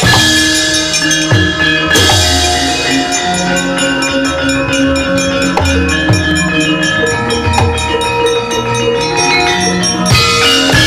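Gamelan accompaniment with drums: struck metallophones ringing steady notes over a driving drum pattern, starting suddenly and changing about ten seconds in.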